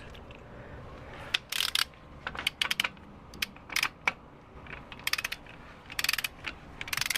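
Hand ratchet on a torque wrench clicking in short bursts as bolts are run down, the first of several torque stages. About six quick clusters of ratcheting clicks with short pauses between them.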